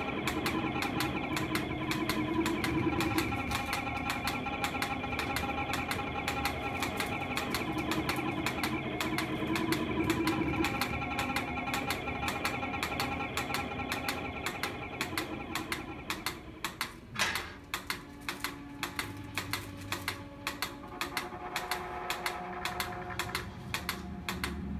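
Experimental live sound piece: dense, irregular clicking, like mechanical metronomes ticking out of step, over layered sustained tones. About two-thirds of the way in the texture thins, and separate ticks come through at roughly two a second.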